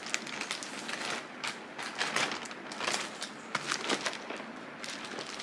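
Packaging being handled and unwrapped by hand: irregular crinkling, rustling and crackling with scattered sharp clicks.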